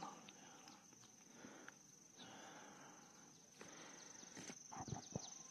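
Near silence from a large congregation holding prostration in prayer: faint scattered rustles and small clicks over a steady faint high whine.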